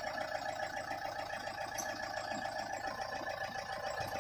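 David Brown 1212 tractor's diesel engine running steadily at a constant speed.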